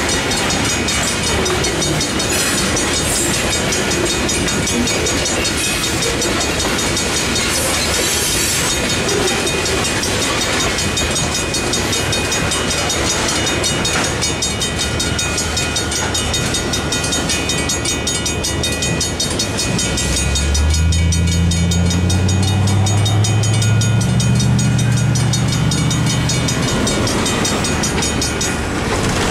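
Freight cars rolling through a grade crossing with steady wheel clatter while the crossing bell rings in a rapid, even rhythm. From about two-thirds of the way in, a semi-truck's diesel engine rises in pitch as it accelerates across the tracks.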